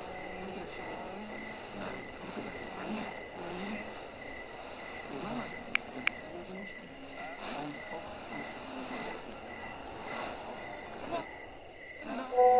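Cricket chirping steadily in the background, evenly spaced high chirps, with two sharp clicks about six seconds in.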